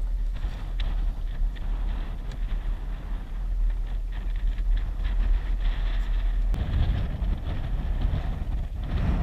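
Steady low rumble aboard a fishing boat at sea, growing heavier about six and a half seconds in.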